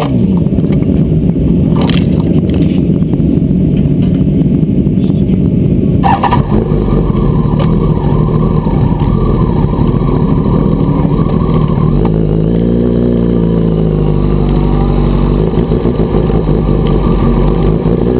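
Sport bike engine idling steadily, with a couple of sharp clicks, then rising in pitch as the bike pulls away about two-thirds of the way in.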